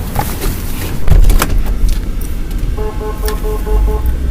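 Moving vehicle's low engine and road rumble, getting louder about a second in, with a few sharp clicks. From about three seconds in a rapid electronic beep repeats about three to four times a second.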